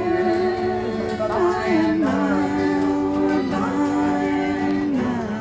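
Music with a singing voice holding long, gliding notes over a steady accompaniment.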